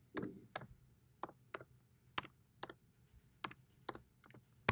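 A marker tapping and clicking against a glass writing board: about a dozen sharp, irregular clicks with short quiet gaps between them.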